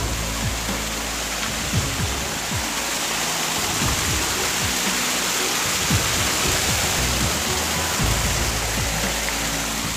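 Background music with steady low notes, laid over the continuous rush of a waterfall.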